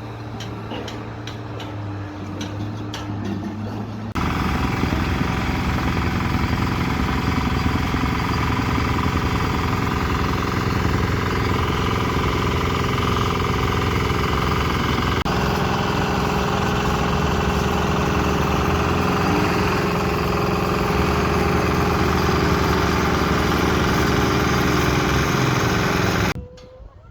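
Heavy construction machine's diesel engine running steadily and loudly, after a quieter opening of scattered clicks and knocks; the engine sound starts suddenly about four seconds in, changes its pitch mix about halfway through, and cuts off abruptly near the end.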